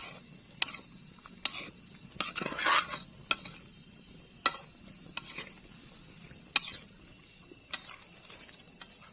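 Insects chirring steadily in the forest, with scattered sharp clinks of utensils against a cooking pot or dishes and a brief scrape about two and a half seconds in.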